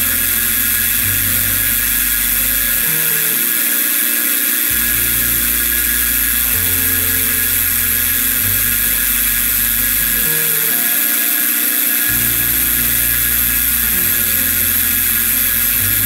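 Milling machine spindle running with a steady high whine as the end mill cuts a groove into a round pin turned on a rotary table. Background music with changing low notes plays underneath.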